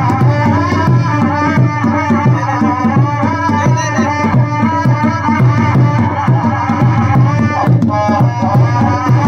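A pair of large bowl-shaped kettle drums beaten with sticks in a steady, driving beat, with a wavering high melody and a steady low drone running over the drumming.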